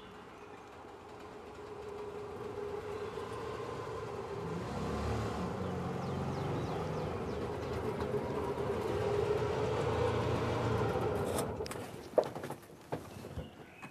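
Auto-rickshaw engine running as the vehicle approaches, growing steadily louder, then dropping away as it pulls up about twelve seconds in. A few sharp knocks follow.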